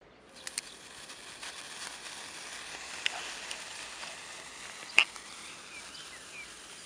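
A bundle of sparklers burning with a steady fizzing hiss and scattered sharp crackles, the loudest about five seconds in.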